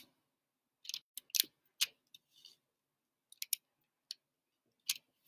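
Pen writing on paper: short scratches and ticks, spaced irregularly, as numbers are written slowly with the non-dominant (left) hand.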